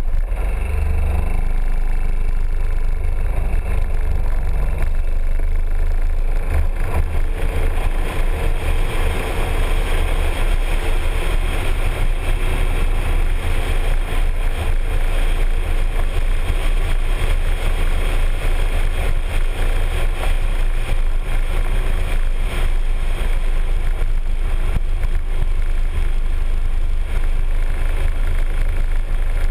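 Piaggio MP3 three-wheeled scooter riding along a road: its engine running under a steady rush of wind noise, heavy in the low rumble. The noise builds a few seconds in as the scooter gets moving, then holds steady.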